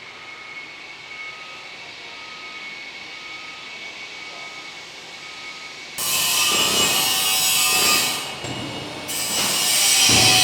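Construction-site noise: a faint steady hum with a repeating beep, then about six seconds in a much louder, harsh cutting or scraping machine noise starts abruptly, drops briefly, and comes back.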